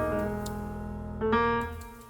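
Gentle piano background music: notes struck and left to ring, with new notes about a second and a half in, then fading out toward the end.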